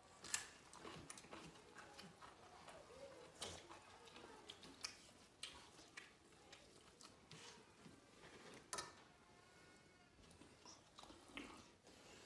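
Faint eating sounds of a family eating rice by hand from stainless-steel plates: chewing and mouth smacks, with scattered short clicks and taps.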